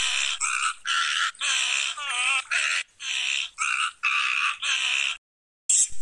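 Pond heron's harsh, rasping calls, repeated about twice a second and stopping abruptly about five seconds in.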